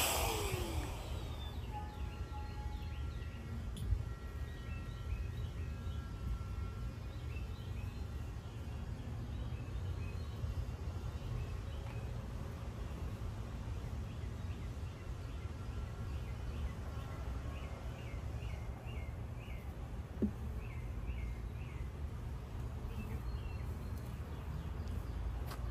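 Garden ambience: birds chirping in short repeated phrases over a steady low rumble, with two single knocks, one about four seconds in and one about twenty seconds in.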